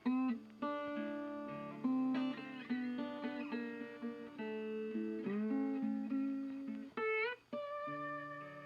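Background music: a guitar playing plucked notes and chords, each note ringing out and fading.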